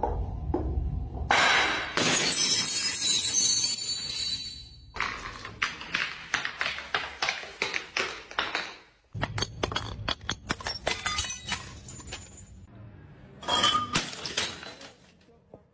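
Glass bottles tumbling down stone stairs, knocking sharply on each step, and smashing. A long, loud shatter comes about a second and a half in, then runs of quick knocks, and another burst of breaking glass near the end.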